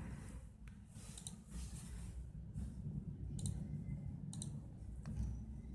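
Several separate computer mouse clicks, spaced irregularly, over a low steady hum from the recording setup.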